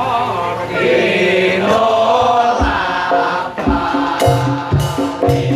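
Live Javanese traditional ensemble music: voices singing a chant-like melody over a held tone. About two and a half seconds in, drum strikes come in and settle into a steady beat with sharp strikes.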